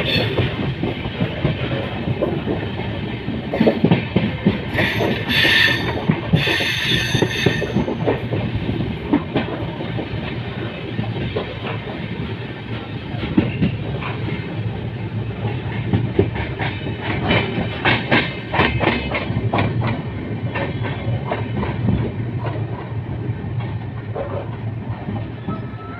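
Passenger train running, its wheels clattering steadily over the rail joints, with a few short bursts of higher hiss a few seconds in.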